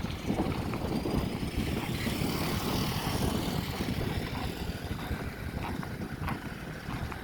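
Vehicle noise: a steady low rumble from road traffic or engines, with a faint high whine in the first few seconds.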